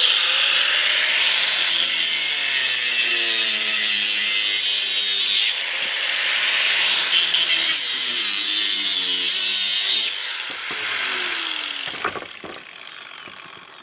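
Electric angle grinder cutting through the cast aluminium wheel rim of a small golf-buggy tyre: a loud, steady grinding hiss, with the motor's whine dipping and rising as the disc bites. About ten seconds in it comes off the cut, and the motor winds down with a falling whine.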